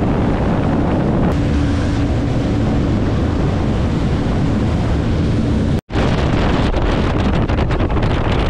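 Wind buffeting the microphone aboard a moving boat, a steady low rumble with a faint motor hum underneath. The sound cuts out for an instant about two-thirds of the way through.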